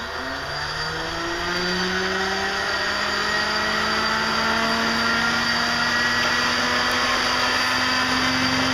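Starter on an Allison V12 aircraft engine whining as it spins up during a start attempt. The pitch climbs slowly and steadily, and it gets louder over the first couple of seconds before holding level.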